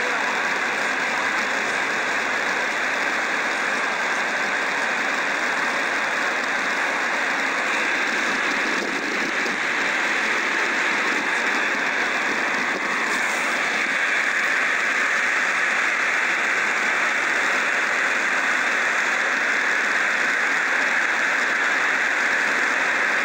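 Niagara's Horseshoe Falls pouring over the brink: a steady, unbroken rush of falling water.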